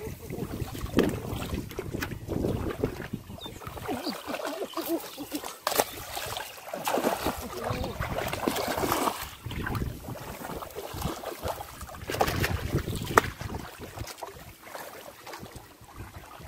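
Shallow water sloshing and splashing in irregular bursts as bare feet wade through the mud and water of a flooded rice paddy, brushing through the rice plants. One sharp click stands out about thirteen seconds in.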